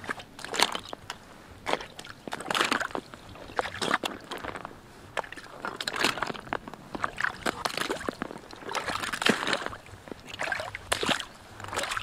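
Rubber boots wading through a water-filled, muddy tractor rut: each step sloshes and splashes in the puddle, about one step a second.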